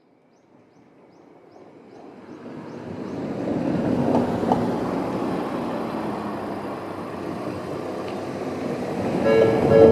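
Road traffic rushing past, fading in and swelling as vehicles go by. Near the end a level crossing's electronic warning bell starts ringing in evenly repeated tones.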